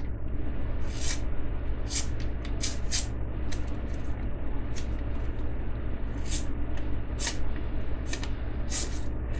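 A small key-shaped backlock knife (a SOG Key-Knife) swiping again and again at a wrinkled cotton-fibre paper bill: about fifteen short, irregular hissing strokes. The blade cuts the crumpled bill poorly.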